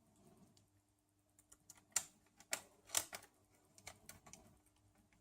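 Scattered light clicks and taps of small metal parts being handled: the optical drive's back mounting frame and its tiny screws being worked with a screwdriver. The clicks come irregularly, loudest about two and three seconds in.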